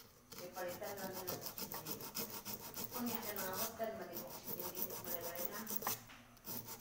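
Sandpaper rubbed back and forth over the metal bottom of a small cooking pot: quick, repeated rasping strokes, with a short pause about six seconds in.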